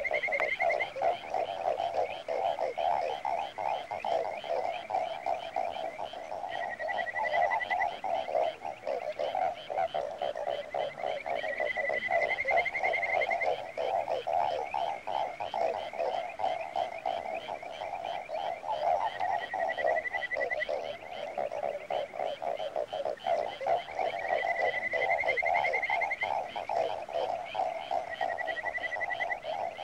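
A chorus of frogs croaking in a dense, fast-pulsing mass, with a higher trill rising above it about every five seconds, each lasting a second or two.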